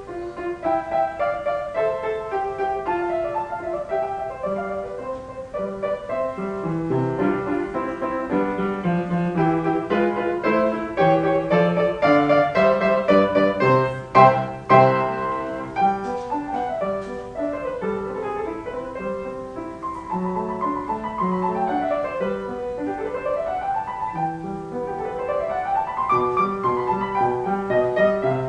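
Solo piano music in a classical style, with quick runs of notes sweeping up and down over the second half.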